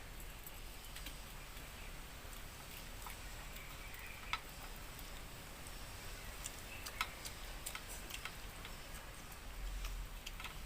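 Faint, irregular clicks and smacks of someone eating by hand and chewing, over a low steady hum.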